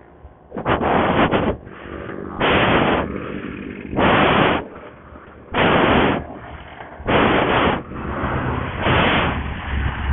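A person panting hard, out of breath: about six heavy breaths roughly a second and a half apart, each blowing straight onto the microphone as a loud rush of noise.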